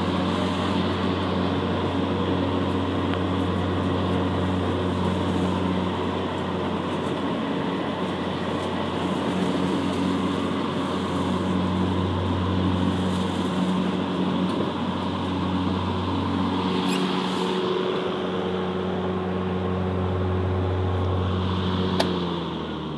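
Electric-converted riding lawn mower running: Ryobi 40-volt brushless motors spinning the 21-inch mower blades and driving the wheels, a steady electric hum. Near the end there is a click, then the hum drops in pitch as the motors wind down.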